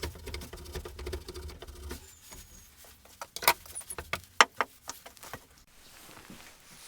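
A tool scraping wood in rapid strokes for about two seconds, tapering the end of a wooden handle; then several sharp separate taps and knocks, the two loudest about midway.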